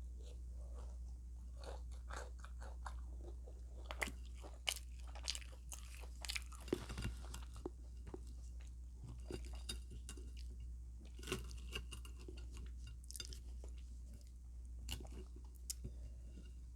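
Close-miked chewing and crunching of food, with irregular crisp bites and mouth clicks. A steady low hum runs underneath.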